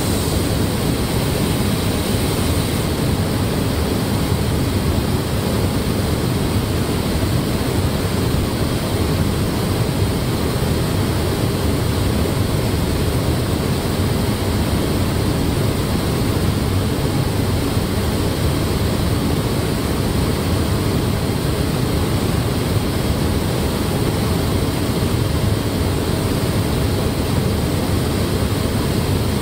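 Steady rushing air noise of a robotic car paint booth: the booth's airflow and the robots' spray guns running as they coat a car body.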